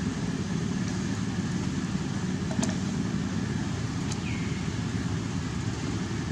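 Steady low rumbling background noise with a few faint clicks, and a short high falling chirp about four seconds in.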